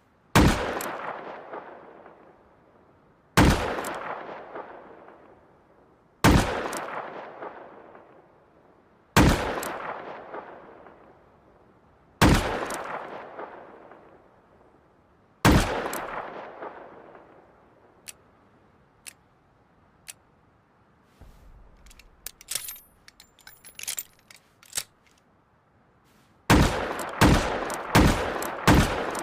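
High-calibre revolver shots: six single shots about three seconds apart, each with a long echoing tail fading over about two seconds. A run of small clicks and light metallic clinks follows, then near the end a burst of shots fired about twice a second.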